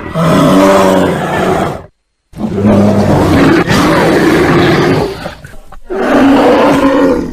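Bear roaring and growling loudly in three long bouts, each cut off suddenly by a brief silence.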